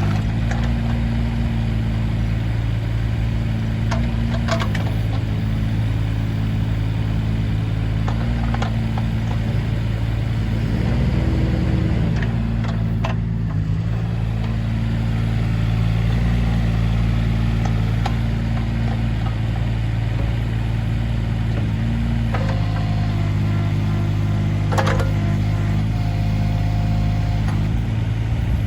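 Kubota KX016-4 mini excavator's three-cylinder diesel engine running steadily, its note stepping up and down at times, with a few sharp knocks along the way.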